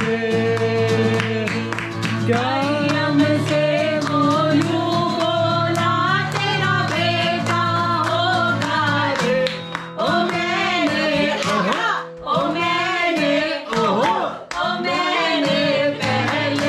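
Acoustic guitar strummed live while several people sing along, with hand-clapping in time.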